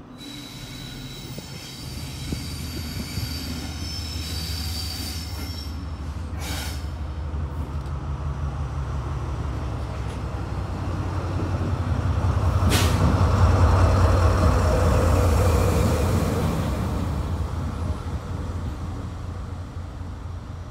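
Colas Rail Class 70 diesel locomotive (GE PowerHaul V16) passing, its low engine drone building as it approaches, loudest about 13 to 15 seconds in, then fading away. A high wheel squeal sounds over the first few seconds, and sharp clicks come about 6 and 13 seconds in.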